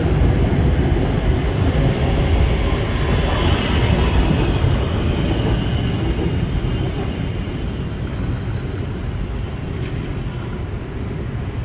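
BTS Skytrain electric train running on its track: a steady wheel-and-rail rumble with a faint high squeal in the first half, easing off gradually toward the end.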